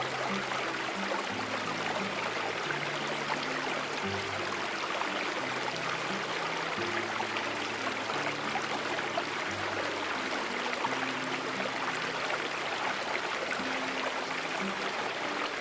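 Steady rushing water, like a flowing stream, under soft background music of slow, low held notes.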